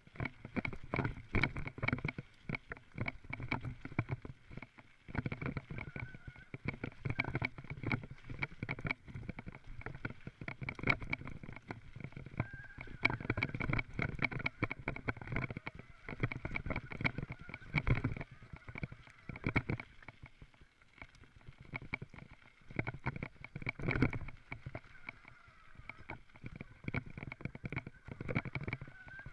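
Mountain bike rattling and clattering as it rides fast down a rough dirt forest trail: a dense, irregular run of knocks and rattles as the tyres hit bumps and roots, with a thin steady whine under it.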